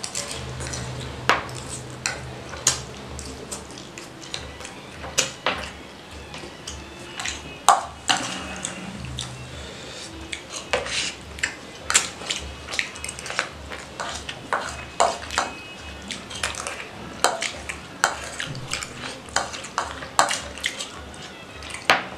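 Metal fork clinking and scraping against a plastic serving tray while noodles are scooped up and eaten, in irregular sharp taps about one or two a second.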